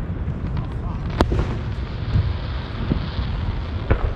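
Fireworks going off: a sharp bang about a second in and another near the end, over a steady low rumble of more distant bursts.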